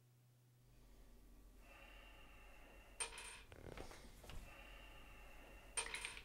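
Plastic toiletries handled on a bathroom sink: two short clattering knocks, about three seconds in and near the end, over faint room tone.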